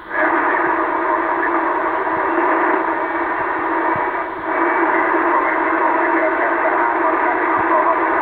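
HF amateur radio transceiver's loudspeaker giving out a received signal in steady band noise, with brief drops near the start and about four seconds in. The distant station's signal is fading in and out (QSB), ever more deeply.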